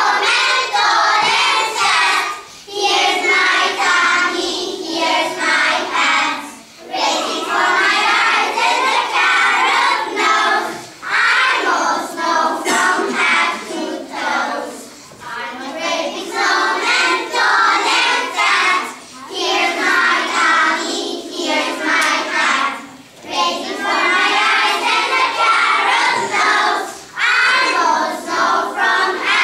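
A group of young children singing a song together in unison, in phrases broken by short pauses for breath every few seconds.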